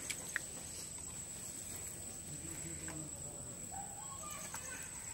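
Quiet outdoor village ambience: a steady high-pitched insect-like whine throughout, a couple of small clicks near the start, and faint low sounds like distant voices.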